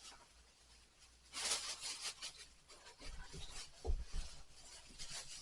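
Faint rubbing and rustling of things being handled and shifted, with a soft low bump about four seconds in.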